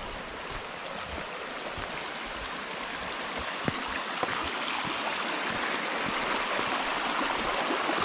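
Shallow woodland creek running over flat rock ledges in small riffles and cascades, a steady babble that grows louder toward the end. A couple of short clicks about halfway through.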